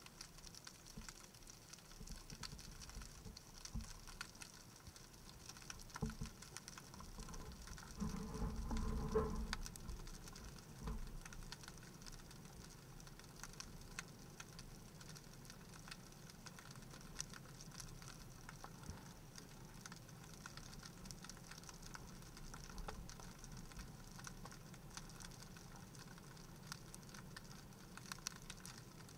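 Underwater ambience recorded through a camera housing: a faint, constant crackle of small clicks. About eight seconds in, a louder low rumble swells for about a second and a half.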